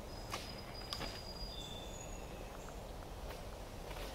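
Quiet woodland ambience with a few thin, high, steady whistled notes, each lasting up to about a second, and scattered sharp clicks of footsteps on the track's gravel ballast over a low steady rumble.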